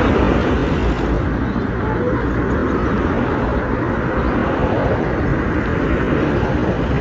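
Steady vehicle and road noise with a heavy low rumble.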